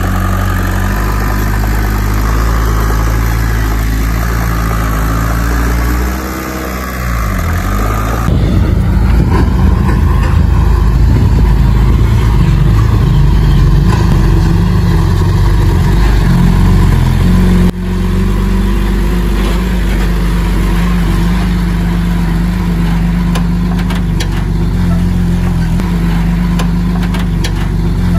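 Heavy diesel engine of earthmoving machinery running, its note dipping and shifting in pitch about six seconds in. The sound gets suddenly louder about eight seconds in and drops back abruptly near eighteen seconds.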